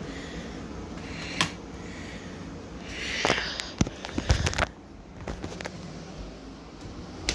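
Handling noise from a phone being moved around: a single click about a second and a half in, then rustling and a quick run of clicks and knocks about three to four and a half seconds in, over a faint steady background hum that drops quieter afterwards.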